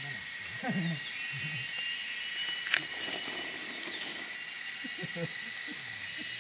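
Steady high-pitched drone of forest insects, several held tones at once, with a single sharp click near the middle.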